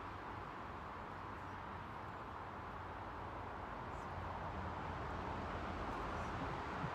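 Steady outdoor background noise, an even hiss with no distinct events, growing slightly louder toward the end.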